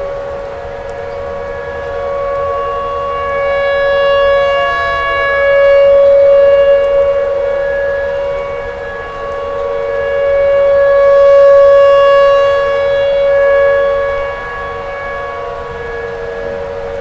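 Outdoor tornado warning siren sounding a steady, held tone, loud, swelling and fading twice as the rotating siren head sweeps past.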